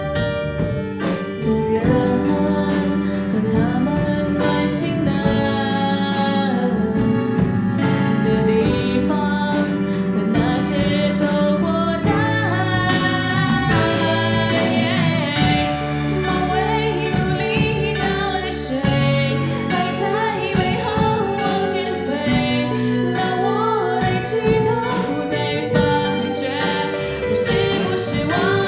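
A woman singing a pop song with a live band of keyboard, drums, electric guitar, bass, violin, viola and alto saxophone, with a steady drum beat.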